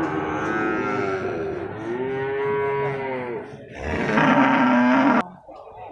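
Cattle mooing: long, drawn-out calls one after another, the pitch rising and falling. The last call cuts off suddenly a little after five seconds in.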